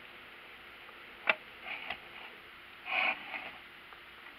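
Hard plastic parts of a 3D-printed engine model being handled: one sharp click about a second in, a few lighter clicks after it, then a short rustling scrape near three seconds.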